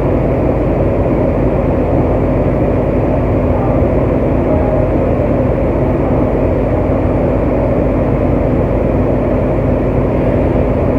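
Washington Metrorail train car running a steady noise with a low, even hum while it stands at a station with its doors open, between the door-open announcement and the door-closing chime.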